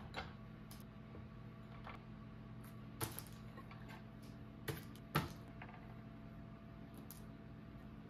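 A few sharp clicks and taps as cookie dough is handled with a spoon over a small ceramic dish and set on a metal baking sheet, the loudest about five seconds in, over a faint steady hum.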